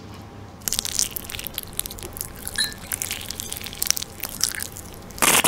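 Crunchy food being chewed: irregular crisp crunches and clicks.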